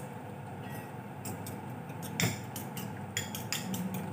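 A metal spoon clinks against a ceramic bowl as eggs are beaten. The quick clicks start about a second in and come faster toward the end.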